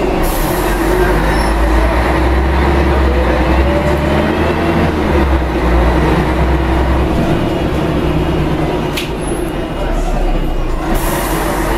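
Rear-mounted Scania DSC1171 11-litre six-cylinder turbo diesel of a Scania L113CRL bus running under way, heard inside the passenger cabin as a steady engine drone with road and body rattle. A faint rising whine comes in about a third of the way through, the level eases slightly near the end, and there is one sharp click.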